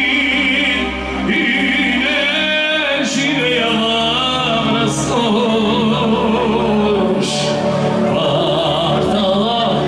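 Amplified live music with a man singing into a microphone over a steady instrumental backing.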